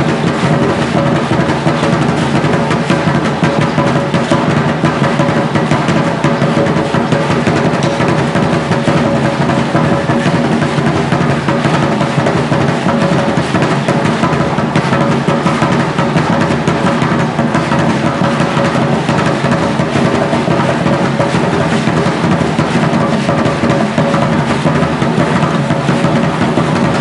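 Continuous, dense drumming on large upright drums, mixed with the rattling of the dancers' nutshell or seashell ankle rattles as they stamp through the Concheros dance.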